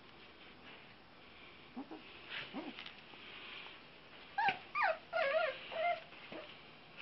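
Puppies whimpering and yipping during rough play with their mother. A few faint short sounds come around two seconds in, then a run of high, wavering whines and yips follows from about four and a half seconds in.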